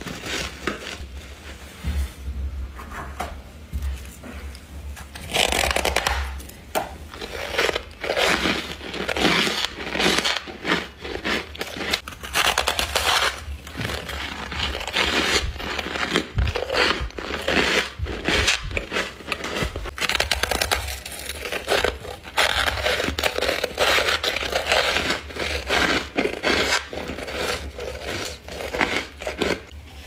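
A person biting and chewing mouthfuls of humidifier-grown freezer frost close to the microphone: irregular runs of crisp crunches and scrapes, heavier in several clusters.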